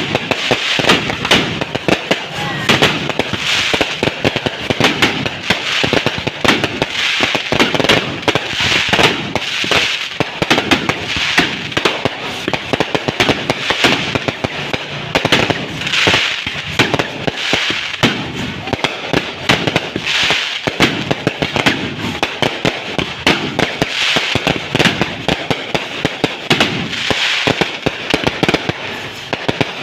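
Fireworks going off nonstop: a dense, rapid run of pops and bangs with no pause.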